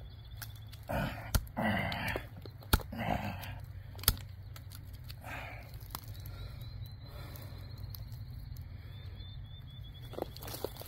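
Survive Knives GSO 4.5 Bushcraft knife being stabbed tip-first into a tree trunk and worked back and forth in the wood: several sharp knocks about a second and a half apart, the loudest about four seconds in, with longer rough noises between them. A bird chirps faintly in quick series.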